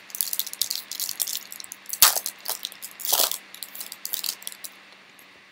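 A foil trading-card pack wrapper crinkling and tearing as it is ripped open, with a sharp snap about two seconds in.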